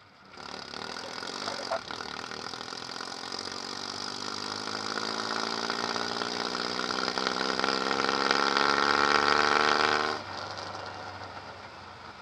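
Straight-piped Suzuki Samurai four-cylinder exhaust, heard right at the tailpipe while driving. The engine pulls under throttle with its pitch climbing steadily and getting louder for about ten seconds, then drops back to a quieter note near the end as the throttle closes.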